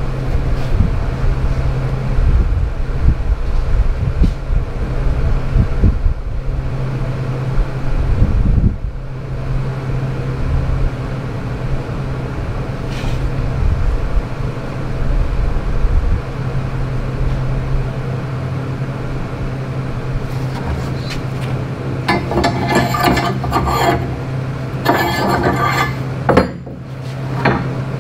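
A steady low shop hum with some rumble. Near the end come two spells of metallic clattering and scraping as the solid stainless steel handrail is shifted and fitted against the wagon seat.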